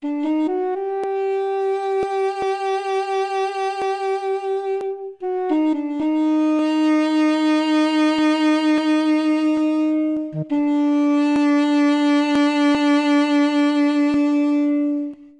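Sampled duduk from the Ethno World 4 library playing three long held notes with vibrato. Each note opens with a short grace note, the first held higher and the next two lower.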